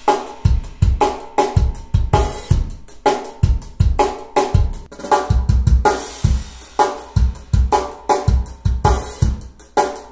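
A drum kit recording (kick, snare, hi-hat and cymbals) played back through two-way bookshelf loudspeakers and picked up by fixed room microphones about 8 ft away. The first pair is the CSS Criton 1TDX DIY kit speakers, and partway through the playback switches to the Bowers & Wilkins 706 S2.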